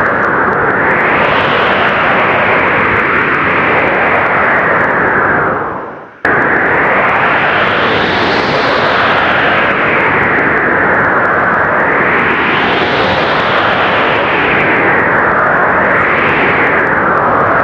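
Blizzard wind: a loud, steady rush that swells and eases in gusts every three to four seconds. About six seconds in it fades away and then cuts straight back in at full strength.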